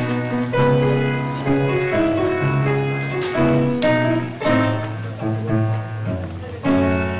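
Upright piano played solo: chords and melody notes struck every half second or so over held bass notes.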